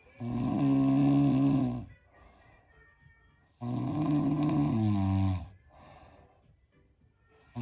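A man snoring heavily: two long, pitched snores about three and a half seconds apart, with quiet breaths between them, the second dropping in pitch as it ends.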